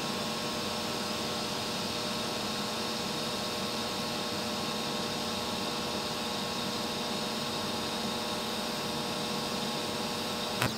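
TIG welding arc from a 1980s Miller EconoTwin stick/TIG welder burning steadily: an even hissing buzz with a constant hum under it, broken by a short click near the end.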